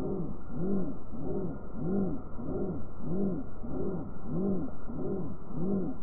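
Stepper motor on a Trinamic StealthChop driver, its hum rising and falling in pitch in a regular cycle about every two-thirds of a second.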